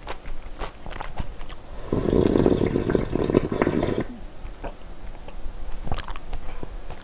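Close-miked eating sounds: wet chewing clicks of noodles, then a two-second slurp of spicy broth from a ladle about two seconds in, then more chewing.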